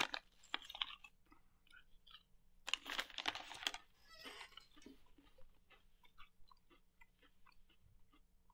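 A person chewing crunchy protein chips: loud crunches in the first second and again around three seconds in, then softer, quicker chewing clicks.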